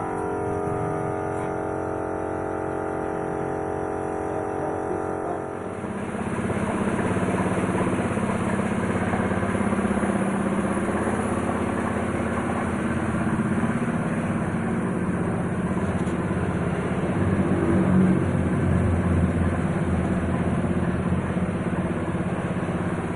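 About six seconds of background music, then a steady machine noise from spray painting: an air compressor running, with the hiss of a spray gun.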